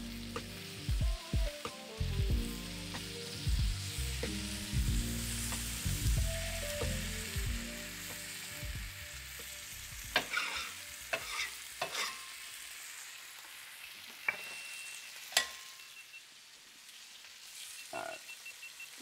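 Steaks sizzling as they sear on a hot griddle, with metal tongs clacking as they are turned. The sizzle eases in the second half, there are several sharp clicks, and near the end comes a short high tone followed by a few brief beeps.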